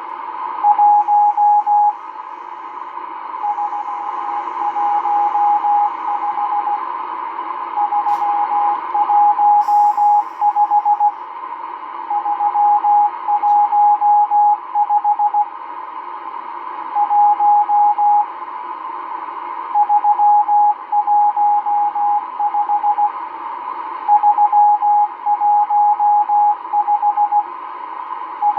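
M12 numbers station sending number groups in Morse code, received on a Realistic DX-394 shortwave receiver. A single steady beep is keyed in dots and dashes, in runs of a few seconds with short pauses between, over constant shortwave hiss.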